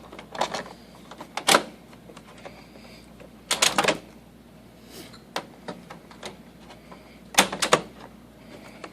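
Plastic clicks and rattles of a Samsung CLP-365w toner cartridge being handled: its safety tab pulled off and the cartridge slid into the printer. A sharp click about a second and a half in, then two louder clusters of clicks, one near the middle and one near the end.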